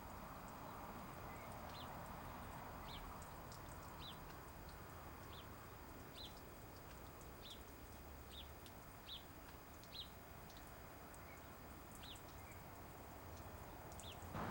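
A bird repeating a short, high chirp about once a second, faint, over a steady hiss.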